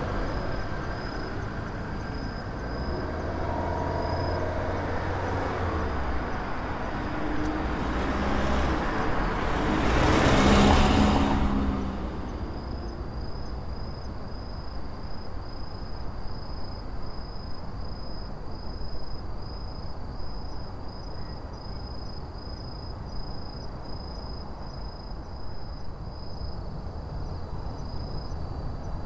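A road vehicle drives past, its engine and tyre noise building to a peak about ten seconds in, then fading quickly. Throughout, autumn insects chirp in a steady, fast-pulsed high note, heard clearly once the vehicle has gone.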